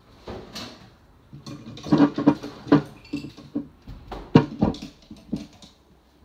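A quick run of sharp wooden clatters and knocks, heaviest in the middle: coloured pencils rattling in a pencil pot as it is handled.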